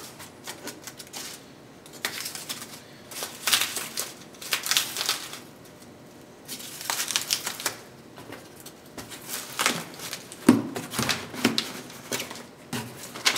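Polystyrene packing peanuts rustling and squeaking in short, irregular bursts as hands press them down into a cardboard box. Near the end the box's cardboard flaps knock as they are folded shut.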